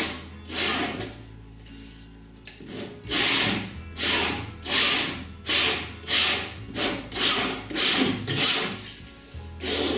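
Flexible palette knife scraping oil paint across a taut cotton canvas in repeated short strokes, coming about twice a second from about three seconds in.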